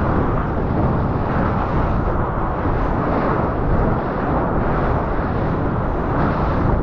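Dull, steady rush of water and wind on an action-camera microphone as a surfboard catches and rides a wave, spray breaking over the board's nose.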